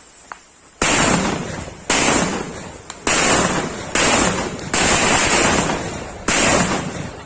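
Diwali firecrackers going off one after another: six sudden loud bursts, each followed by a hiss that dies away over about a second, the first coming just under a second in.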